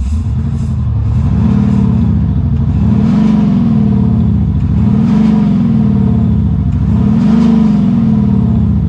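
Land Rover Defender 130 diesel with a Quicksilver Sound Architect sound-generator exhaust, giving a simulated V8 note as the engine is revved at a standstill. The pitch rises and falls about four times, roughly every two seconds.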